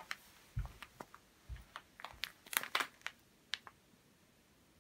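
Plastic cereal bag crinkling as it is handled, a string of sharp crackles with a couple of soft thumps, going quiet for the last second.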